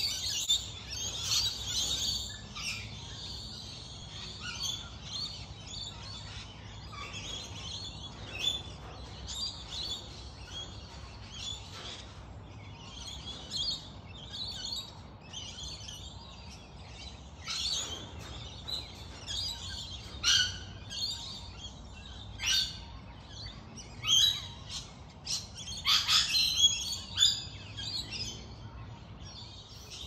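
A chorus of many wild birds chirping and calling at once: a steady din of high chirps, with louder, sharper calls standing out now and then, most often in the second half.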